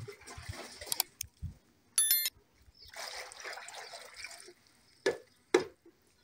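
Water poured from a plastic jug into a plastic basin, splashing in two spells. Between the pours there is a short, loud, shrill tone, and near the end two sharp knocks.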